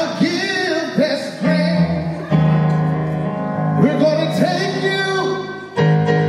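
A man singing into a microphone over instrumental accompaniment, holding several long notes.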